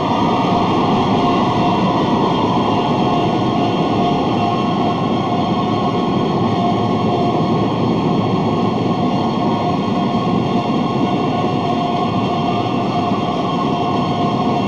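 Large indoor crowd cheering and shouting in one steady, loud roar, with a faint held tone underneath.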